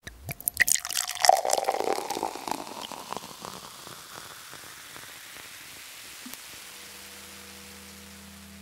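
Water splashing and dripping, a dense patter of drops over the first few seconds that thins into a steady hiss. A low musical drone of steady tones comes in near the end.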